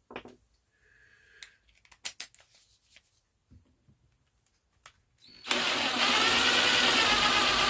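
Handling clicks and knocks, then about five and a half seconds in an electric drill starts up and runs steadily, boring a hole for the switch wires.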